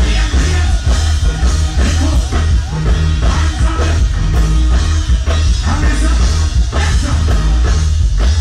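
Live reggae band playing loud, with a heavy bass line and drum-kit beats, and vocals on the microphone over the band.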